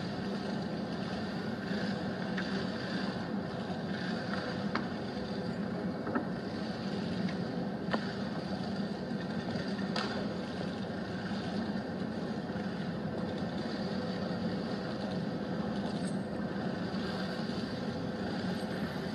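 Steady low hum and hiss of a large hall's room tone while a gathering kneels in a moment of silence, with a few sharp clicks in the first half.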